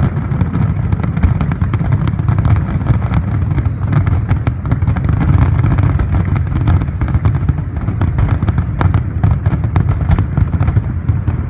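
Fireworks going off in a rapid, unbroken barrage: many sharp cracks over a constant deep rumble of overlapping bursts.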